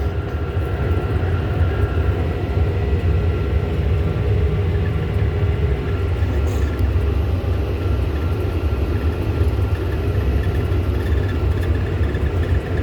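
John Deere tractor's diesel engine running steadily under way: an even, low rumble with a faint steady hum above it.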